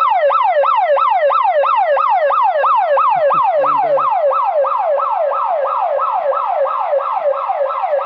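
Homemade camp bear alarm's electronic siren, set off by the trip wire pulling its cutout switch, wailing in quick falling sweeps about three times a second until it is switched off near the end.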